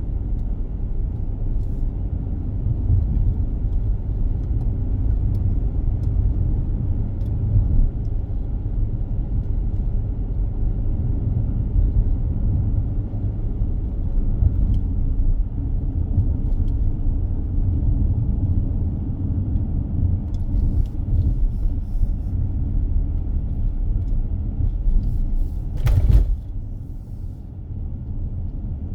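Steady low rumble of a car driving on a road: tyre and engine noise. Near the end a brief louder noise breaks in, after which the rumble runs a little quieter.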